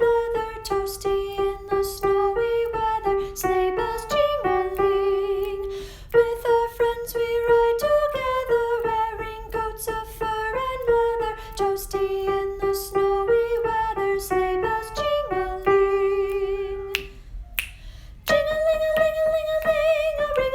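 A soprano voice singing the soprano line of a choral song, held notes with vibrato moving step by step, over a steady clicking beat. The melody breaks off about seventeen seconds in for an audible breath, then a new, higher phrase begins.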